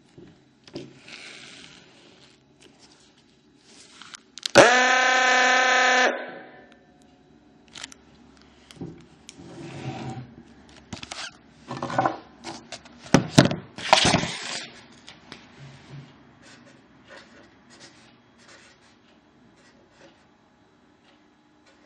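A homemade electric fire-truck horn gives one steady, buzzy blast about a second and a half long, cutting off abruptly. Before and after it come scattered scrapes, clicks and knocks from handling.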